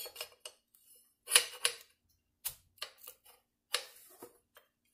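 A handful of light clicks and knocks from an AR-10 lower and upper receiver being handled and pressed together to test the fit, the loudest about a second and a half in.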